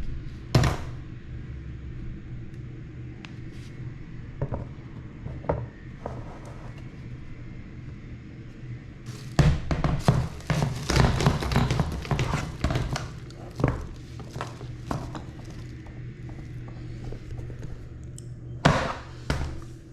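Chair parts knocking and clattering as they are handled and fitted together during assembly: a single knock, a few light clicks, then a dense run of knocks and rattles for several seconds, and one more sharp knock near the end, over a steady low hum.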